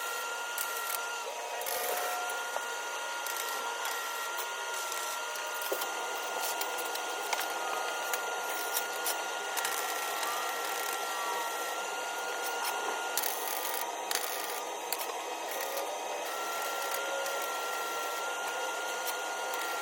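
Metal fabrication work: a steady hiss and crackle with scattered sharp clicks and a faint, steady whine that drops out now and then.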